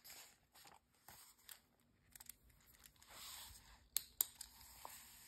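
Faint rustling and brushing of hands moving over glossy magazine pages, with a longer rustle about three seconds in and two sharp clicks shortly after.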